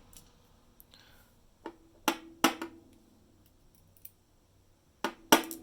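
Sharp metallic clicks and taps, each with a brief ring, from small lock parts and tools being handled while a dimple lock is taken apart. They come in two clusters: three about two seconds in, and two more near the end.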